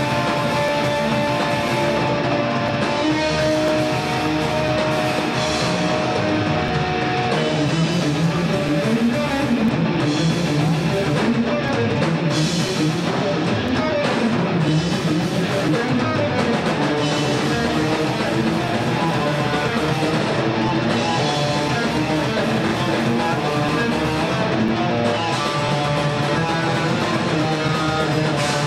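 Thrash metal band playing live, with distorted electric guitar, bass guitar and drum kit. Held guitar notes in the first several seconds give way to fast riffing.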